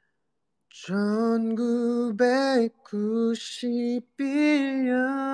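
A man singing unaccompanied: a slow melody in held notes that begins about a second in, breaks off briefly twice, and ends on a long held note.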